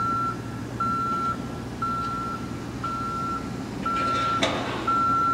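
Vehicle backup alarm beeping steadily, one high even-pitched beep about every second, six in all, over a steady low engine rumble. A brief rasping noise cuts in about four seconds in.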